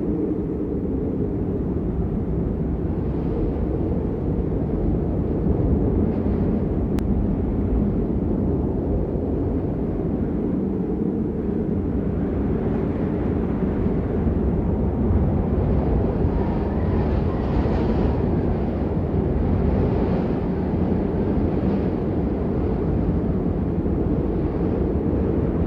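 Steady rain noise, muffled and deep, with most of its weight in a low rumble and only a faint hiss above, swelling slightly now and then.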